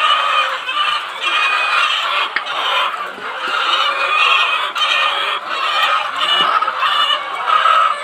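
A large flock of chickens clucking and calling without pause, many birds overlapping at once.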